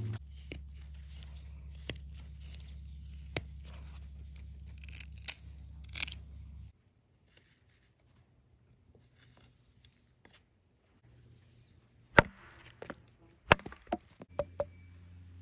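Rustling and crunching of footsteps through forest undergrowth over a steady low hum, which cuts off abruptly. Near the end, a few sharp clicks of a steel knife blade against a green wooden stick.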